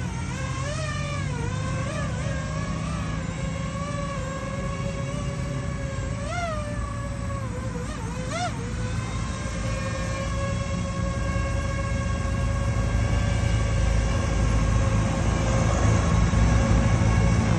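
DJI FPV drone flying overhead: a steady, high propeller whine whose pitch wobbles and briefly jumps a few times as the throttle changes. Under it is a low rumble of road traffic that grows louder toward the end.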